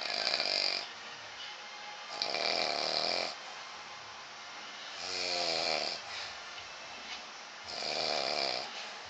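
A man snoring in his sleep, a snore the title likens to a herd of animals. There are four snores, about two and a half seconds apart.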